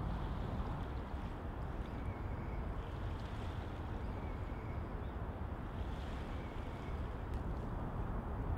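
Steady low outdoor rumble of wind and distant traffic, with no clear events.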